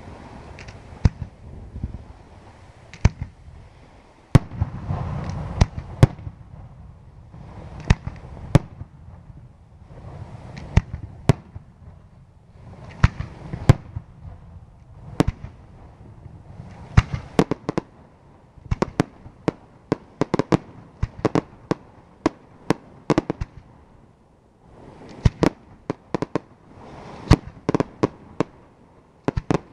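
Aerial firework shells bursting in a long, irregular string of sharp bangs over a low rumble. The bangs come thicker and faster in the second half.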